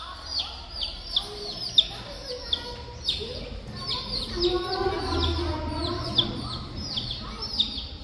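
Baby chicks peeping, a continuous string of high, falling peeps, two or three a second.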